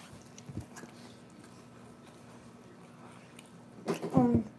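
Quiet room tone with a faint steady hum and a few soft clicks, then near the end a short voiced murmur from a child.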